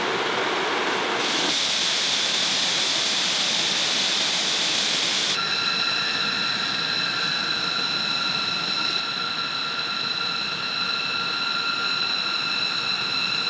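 B-2 Spirit's four General Electric F118 turbofan jet engines running as the bomber moves out to taxi: a steady hissing roar. About five seconds in it changes to a high turbine whine, several steady tones over the hiss.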